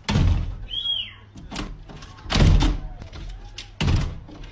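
Dog pawing at a glass sliding door, the door knocking and rattling in its frame in several irregular heavy thumps. A brief high squeak about a second in.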